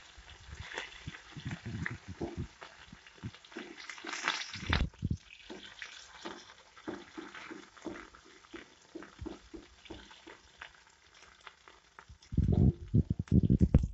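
Ginger paste frying in hot mustard oil in a metal kadai, crackling and popping while a metal spatula scrapes and stirs it against the pan. There is one louder knock about five seconds in, and a run of heavier knocks and scraping near the end.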